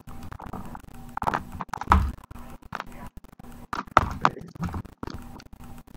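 Small essential-oil bottles knocking and clicking as they are handled and set down: a few short, sharp knocks spread out, the loudest with a dull thump about two seconds in.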